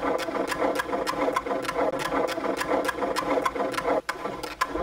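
Traditional wooden strap-driven wood-turning lathe running while a turned wooden bowl is polished on it with beeswax. Its wooden shaft and frame give a steady rhythmic clatter of about five clacks a second.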